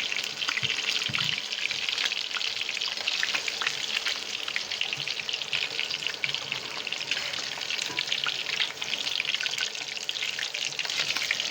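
Chicken rista meatballs frying in hot oil: a steady sizzle full of fine crackles.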